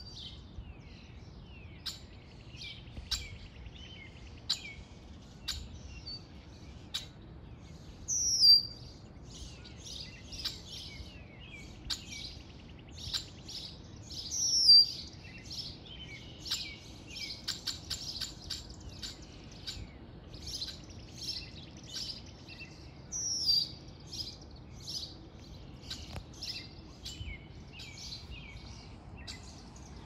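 Several songbirds singing and chirping together in a busy morning chorus. One bird gives a loud, sharp call that slides downward in pitch, three times: about eight, fifteen and twenty-three seconds in.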